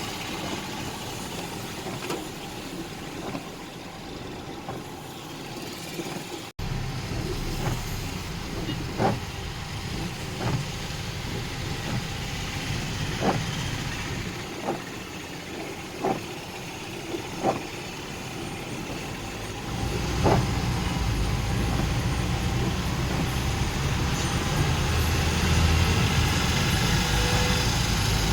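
Town street traffic with vehicle engines running and a series of short sharp knocks between about 9 and 20 seconds in. A deeper, louder engine rumble sets in about 20 seconds in.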